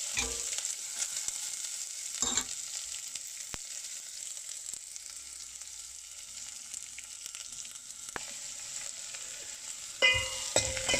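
Whole spices and chopped garlic frying in hot olive oil in a pot: a steady sizzle, with a few sharp knocks from stirring, and something louder with steady tones starting about a second before the end.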